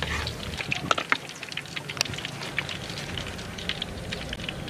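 Hot frying oil crackling and spitting in a wok just after a batch of pork ribs has been fried, with many small irregular pops.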